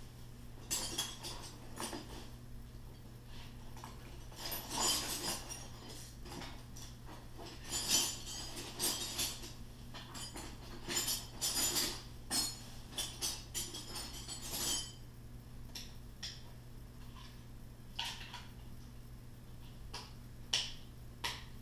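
Scattered light metallic clinks and clatter, coming in irregular clusters with the strongest about a third of the way in, over a steady low electrical hum.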